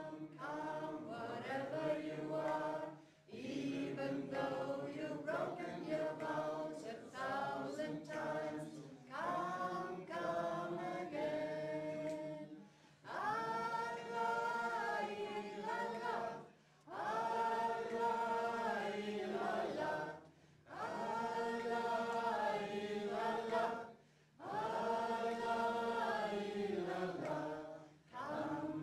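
A choir singing a slow chant without accompaniment, in phrases of three to four seconds with short breaths between; from about halfway the phrases become long held notes.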